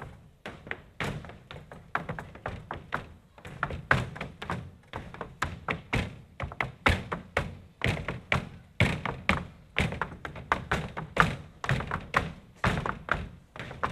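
Malambo footwork (zapateo): dancers' boots striking the stage floor in quick, uneven rhythmic stamps and taps, several a second.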